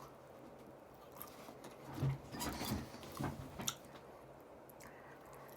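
A person chewing and biting food close to the microphone, a short run of moist chews and crunches in the middle with quiet either side.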